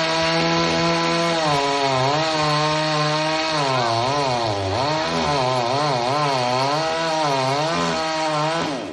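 Chainsaw running at high revs while cutting a tree. Its pitch dips and recovers over and over as the chain bites into the wood, and the revs drop off near the end.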